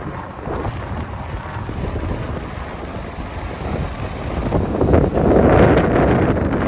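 Strong wind buffeting the phone's microphone as a low rumble, over the wash of rough Mediterranean surf breaking on the beach. The noise grows louder about five seconds in.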